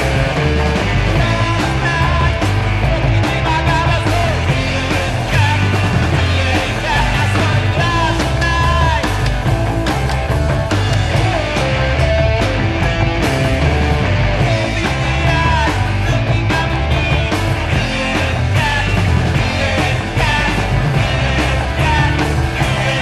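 Garage punk rock with fuzz guitar and driving drums, playing from a vinyl test pressing on a turntable.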